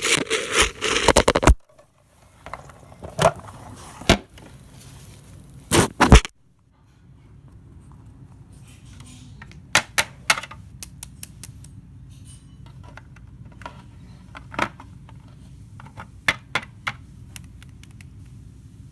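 Plastic toy figures and a toy airplane being handled and moved about: a burst of clattering and scraping at the start, a few single sharp clicks, then scattered light taps and clicks.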